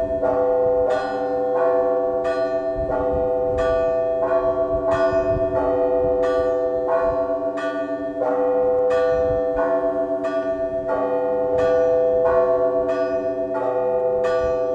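Russian church bells rung by a bell ringer in a matins peal. Small bells are struck in an even, quick rhythm over the lasting ring of larger bells.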